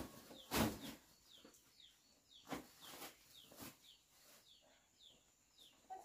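Small birds chirping over and over in short, falling chirps. A few dull knocks cut through, the loudest about half a second in.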